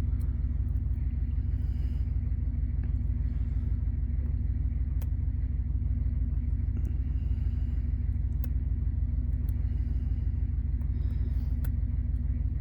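Steady low rumble, with a few light, sharp clicks scattered through it from a lock pick working the pins of a knockoff Bi-Lock.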